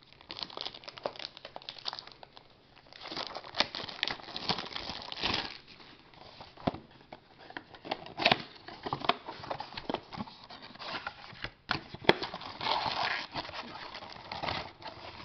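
Plastic shrink wrap crinkling and tearing as it is peeled off a sealed cardboard box of trading cards, with scattered sharp clicks as the box is handled and its flap opened.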